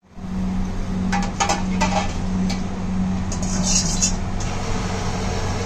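Gas wok burner running with a steady low rush, while a steel ladle clinks against the wok a few times, around a second in and again near four seconds.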